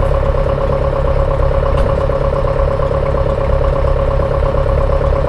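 Engine running at a steady speed, with a constant low rumble and a steady whine over it.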